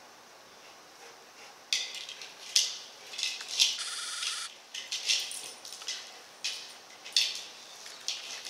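A Rottweiler nosing and mouthing at a hard plastic ball: a series of short, scratchy bursts at irregular intervals, starting about two seconds in, with a half-second rasp near the middle.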